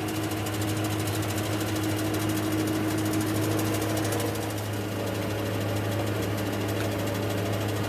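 A machine running steadily in a workshop: a constant low hum with a fast, even rattle over it.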